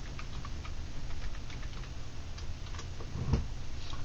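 Computer keyboard being typed on: a quick, irregular run of key clicks, with one heavier knock about three seconds in.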